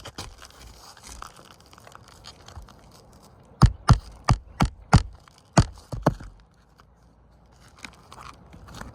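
Scraping and rustling at the roof surface, then about seven sharp hammer strikes in quick, uneven succession around the middle, typical of nailing down a repaired asphalt shingle.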